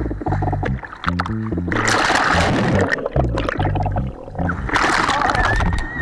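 Surf water rushing and splashing over a waterproof action camera on a bodyboard, once about two seconds in for about a second and again near the end, over background music with a changing bass line.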